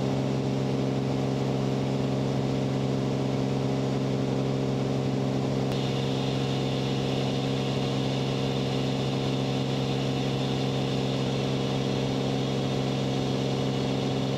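Cirrus single-engine plane's piston engine and propeller droning steadily at cruise power.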